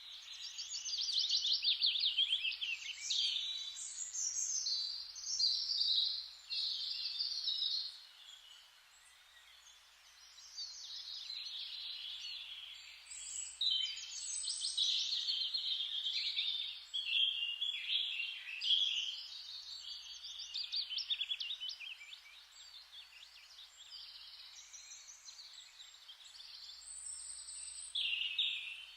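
Many small birds chirping and chattering together in a dense, uneven stream of quick high notes.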